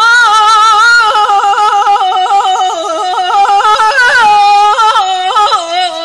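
A woman singing Persian classical avaz in Bayat-e Tork unaccompanied. Her held notes are broken by rapid, repeated pitch flicks in the yodel-like tahrir ornament.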